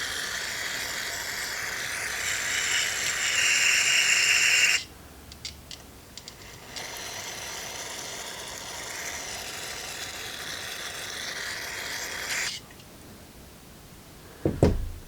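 Aerosol can of brake cleaner spraying onto a plastic carburetor float bowl in two long hisses, each cut off sharply, with a few light clicks in the pause between them.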